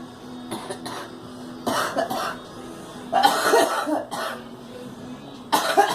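A girl coughing in several bouts: a faint cough early, a pair of coughs about two seconds in, a longer fit of coughing about three seconds in, and another loud cough near the end.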